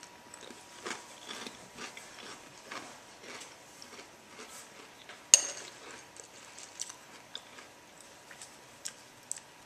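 A man chewing a mouthful of oat-ring breakfast cereal in soy milk: faint, irregular chewing noises with one sharp click about five seconds in.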